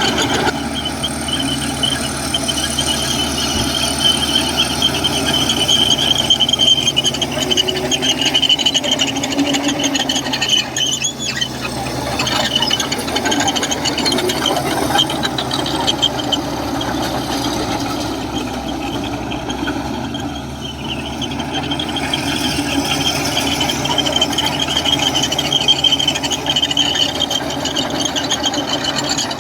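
Komatsu crawler bulldozer at work: the steel track undercarriage squeals in a high, wavering tone over the steady run of the diesel engine.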